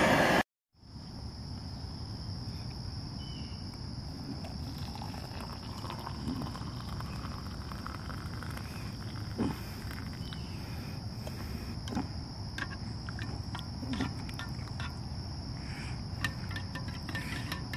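Crickets trilling steadily in one continuous high tone. Light clicks and taps sound now and then, more often near the end.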